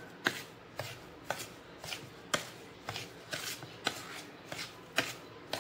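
Metal spoon stirring powdered sugar into roasted gram flour in a bowl, clinking and scraping against the bowl about twice a second.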